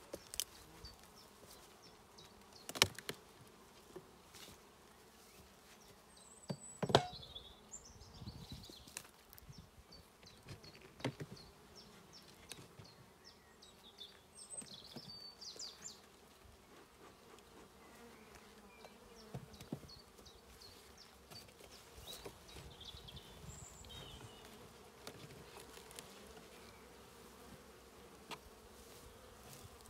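Honeybees humming steadily around an opened wooden hive, with a few sharp wooden knocks as the hive boxes are handled, the loudest about three and seven seconds in.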